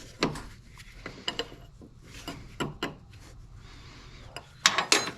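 Metal hand tools clinking and knocking: a wrench working the power steering pump's high-pressure line fitting, irregular sharp clicks with a louder cluster near the end.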